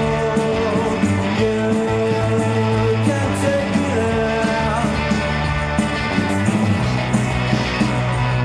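Rock band demo recording: a sung melody over electric guitar, bass guitar and drums, playing at a steady tempo.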